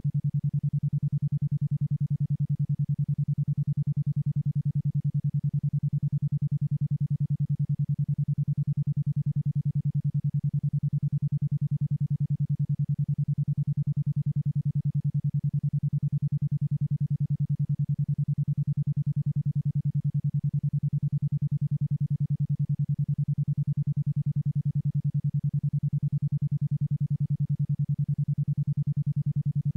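Experimental 10.2 Hz isochronic tone: a single low, steady synthesized tone switching on and off about ten times a second, evenly and without change.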